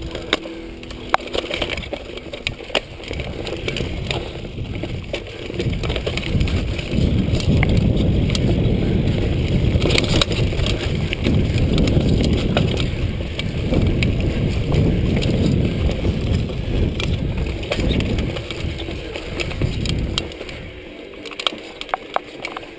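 Mountain bike ridden fast down a dirt singletrack, heard from a chest-mounted camera: wind rumbles on the microphone over the noise of the tyres on dirt, with scattered sharp clicks and rattles from the bike. The rumble is loudest through the middle and eases off near the end.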